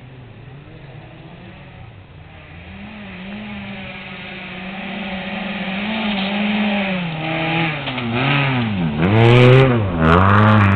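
Rally car engine approaching at full throttle on a dirt stage, growing steadily louder as it nears. Its revs rise and fall, then dip sharply twice near the end before climbing again as the car comes close.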